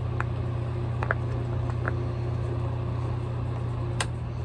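Electric fan running with a steady low hum, with a few faint clicks over it, the loudest about four seconds in.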